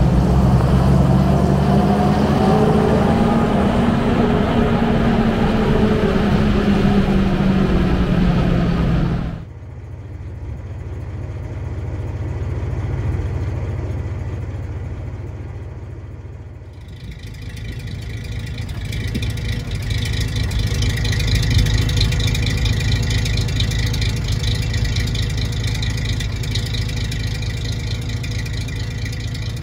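1945 Mack NO prime mover's engine pulling the truck along, heard from inside the cab, its pitch rising and then easing off. About nine seconds in it cuts to a quieter, steady low engine rumble, and about halfway through to a brighter, hissier running sound that holds to the end.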